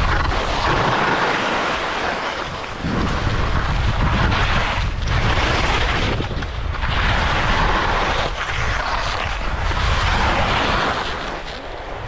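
Skis scraping and hissing over tracked snow through a series of turns, swelling and easing every couple of seconds, with wind rushing over the microphone.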